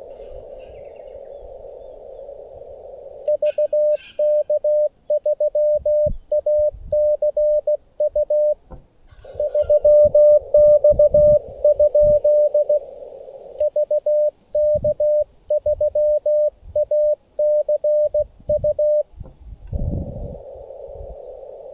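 Morse code on a Xiegu G90 CW transceiver: narrow-filtered band hiss, then two runs of keyed dits and dahs in a single tone, with a louder stretch of tone over the hiss between them. The operator is calling a New Zealand station that does not come back. A few faint low knocks are mixed in.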